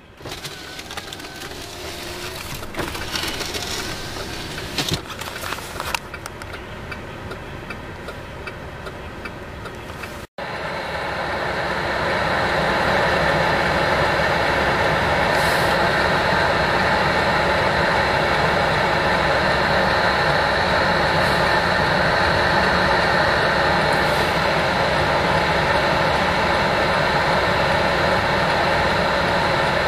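A few knocks inside the car, then, after a sudden cut about ten seconds in, a loud steady rush of blizzard wind on the microphone with crackling.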